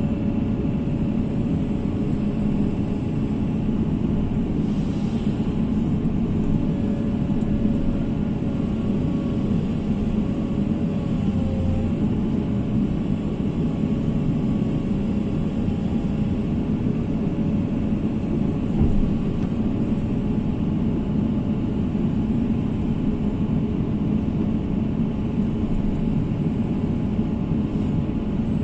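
Heavy diesel engine of an excavator running steadily, a low rumble with a faint steady whine above it.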